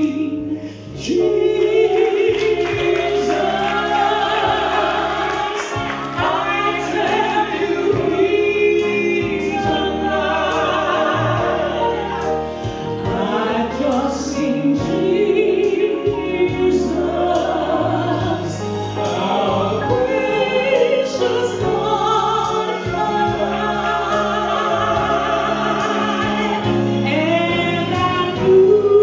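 Gospel song: a woman singing lead over instrumental accompaniment of held chords and a bass line.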